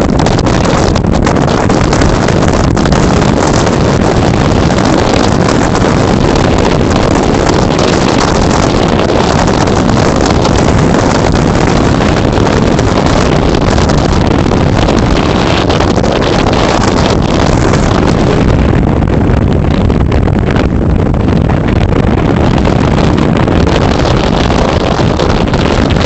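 Storm-force wind buffeting the camera's microphone in a loud, continuous rumble, with rough surf breaking on a shingle beach mixed in. The hiss eases for a few seconds about two-thirds of the way through.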